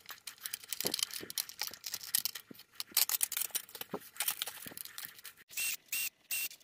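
Small screws and plastic parts being handled, clicking and rattling on a work mat. About five and a half seconds in, a cordless drill-driver whirs in short trigger pulses, about three a second, as a screw is driven into the 3D-printed plastic.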